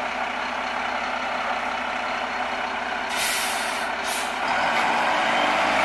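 Mack LEU refuse truck with a McNeilus front loader and Curotto-Can arm running, its diesel engine humming steadily, with two loud hisses of released compressed air about three seconds in. Near the end the engine gets louder.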